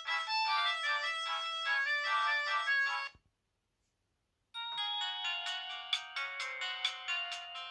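Ringtones playing from the DAPENG T2000 phone's loudspeaker: a quick melodic tune stops abruptly about three seconds in, and after about a second and a half of silence a different tune with held chords and a rhythmic beat begins.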